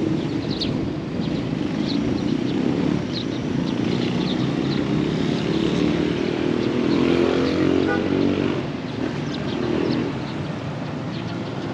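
A motor vehicle's engine running, its pitch rising and falling, loudest in the middle and easing off near the end.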